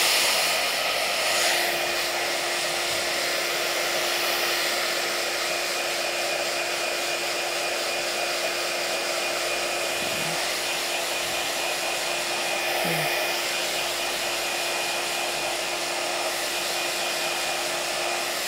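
Handheld iTeraCare terahertz wand running steadily, its built-in fan giving a continuous whir with one constant low hum beneath it.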